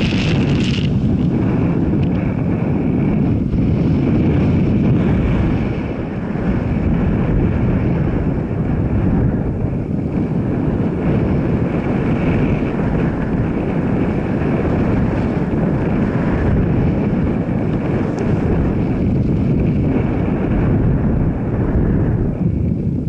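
Steady wind rush buffeting the microphone over the running noise of a moving vehicle, with a faint steady whine held throughout.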